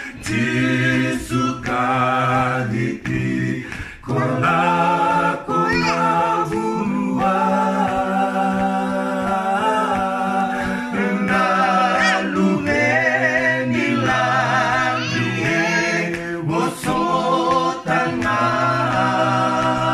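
Background music: an a cappella vocal group singing in harmony, several voices holding and changing notes together with no instruments.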